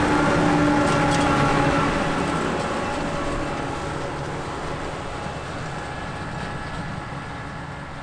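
Case IH Axial-Flow combine harvester on tracks driving along a farm track, its engine and running gear running steadily with a few steady tones over a broad rumble. The sound fades gradually from about two seconds in.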